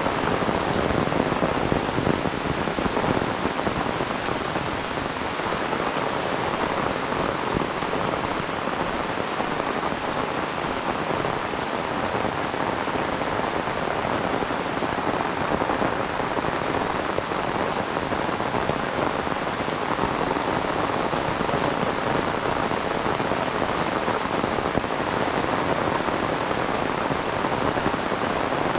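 Heavy rain falling steadily, an even, unbroken hiss of rain on the ground and surroundings.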